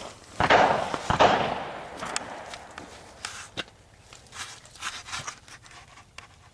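Two rifle shots about three-quarters of a second apart, each trailing off in a long echo, followed by scattered small clicks and knocks of the shooter's gear and footsteps.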